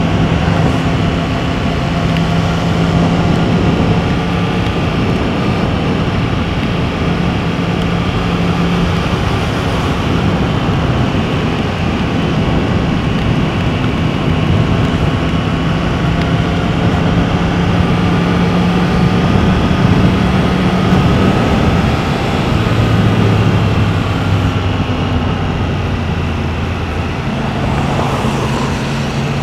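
Yamaha MT-10's crossplane inline-four with an Akrapovič exhaust running at a steady cruise under a constant rush of wind and road noise. The engine note drops lower about 22 seconds in and picks up again near the end.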